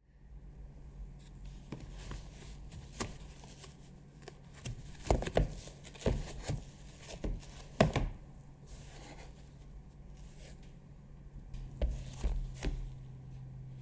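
Hands unpacking and handling a boxed PC fan: packaging rustling and a scattered series of knocks and taps, the sharpest about five and eight seconds in and a few more near the end, over a faint low hum.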